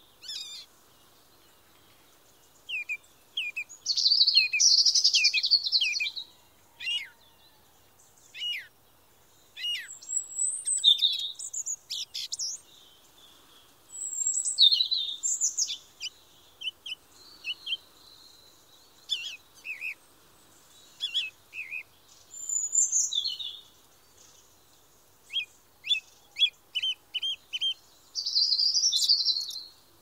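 Songbirds singing: a string of high, varied phrases of chirps and trills with short pauses between them, some of them quick runs of repeated notes.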